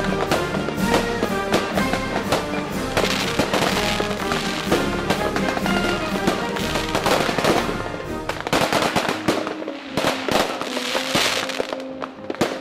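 Fireworks display: a dense run of shell bursts, sharp bangs and crackling, with music playing alongside.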